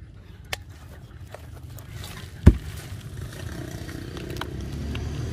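Hands scraping and pulling through the loose, fibrous pith of a felled palm trunk. There is a sharp click about half a second in and a heavy thump, the loudest sound, about two and a half seconds in.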